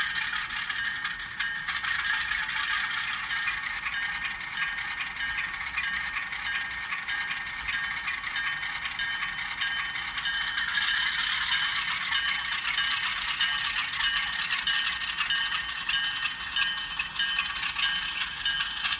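HO scale Alco RS11 model locomotive running on its ESU LokSound DCC sound decoder: the decoder's diesel engine sound comes through the model's small speaker, thin with little low end, along with the mechanism running on the track.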